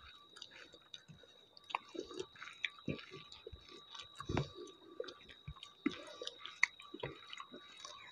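Close-up mouth sounds of people eating rice and thick dal by hand: irregular wet chewing and lip smacks, with soft squishes of fingers kneading the rice on the plate.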